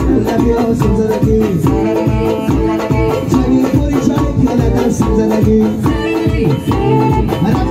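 Live Tajik folk-pop dance music played loud through PA loudspeakers: an electronic keyboard tune over a steady bass beat, with a singer's voice.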